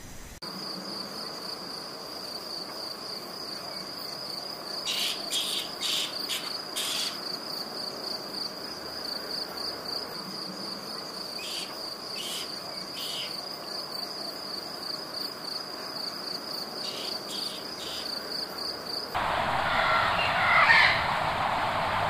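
Steady, high, finely pulsing insect trill, with a few small clusters of short sharp ticks over it. About three seconds before the end it cuts off abruptly and gives way to a louder, rougher rushing noise with a brief call in it.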